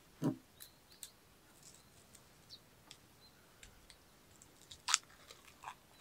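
Foil lid being picked at and peeled off a small frozen Yakult bottle: faint crinkles and small clicks, with a sharper crackle about five seconds in.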